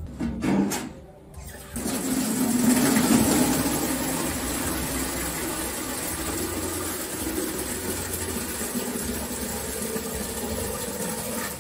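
Water from a tap running into a galvanized metal watering can: a steady rushing fill that starts a little under two seconds in, after a few short knocks.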